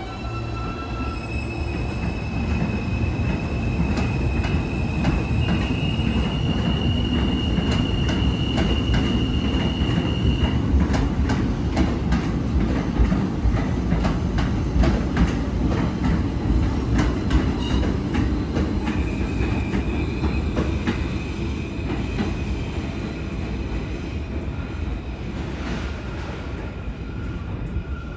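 New York City subway train passing on elevated track. Its steel wheels squeal in long, high, steady tones for the first ten seconds and again over the last ten. Through the middle, as it goes by loudest, the wheels clack rapidly over the rail joints.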